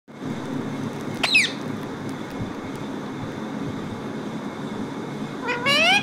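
Rose-ringed parakeet calling twice: a short squawk falling in pitch about a second in, then a louder, longer call rising in pitch near the end, over a steady low hum.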